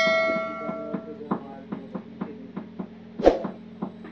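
A bright bell-like chime rings and dies away over about a second, then a few faint ticks and one sharp click about three seconds in, over a steady low hum.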